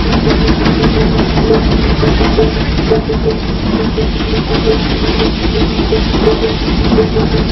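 Sawdust pallet making machine running: a loud, steady mechanical drone with a low rumble and a regular pulsing hum.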